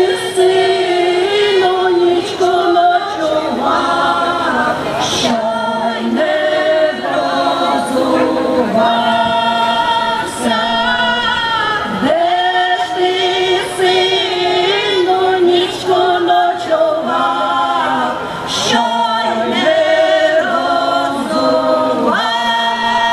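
A women's folk choir singing a Ukrainian folk song a cappella, several voices together in long held phrases. A new phrase begins about halfway through and again near the end.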